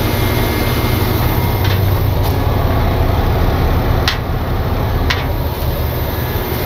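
Engine of a heavy wrecker running steadily with a low hum. Two sharp clicks sound about four and five seconds in.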